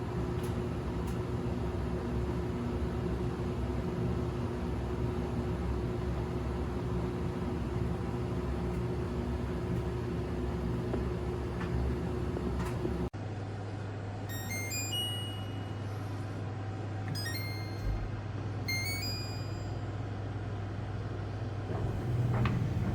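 Sentern SN-54 portable clothes dryer running, its tub motor giving a steady hum. Partway through, the hum changes to a lower steady drone. Three short runs of electronic beeps follow, typical of an appliance control panel.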